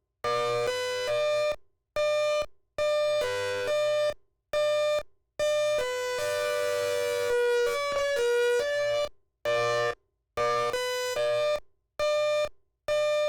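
Prototype electronic siren sounding a test pattern: short bursts of stepped electronic tones that cut off abruptly into silence, with a longer stretch of gliding pitches around the middle.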